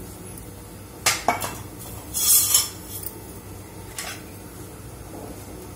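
Kitchen utensils clinking and knocking: two sharp knocks about a second in, a brief clattering rattle a second later, and one more lighter knock about four seconds in.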